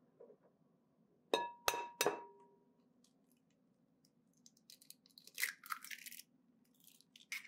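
Egg tapped three times against the rim of a glass mixing bowl, each tap a sharp clink with a short ring of the glass. A few seconds later the shell crackles as it is pulled apart and the egg drops in, with more shell crackling near the end.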